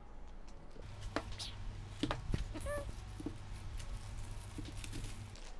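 Packing being pulled off a large boxed speaker: scattered rustles and light knocks, with a short squeak about halfway through, over a low steady hum.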